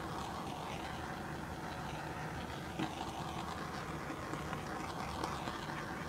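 Handheld butane torch burning with a steady hiss, with one light click about three seconds in.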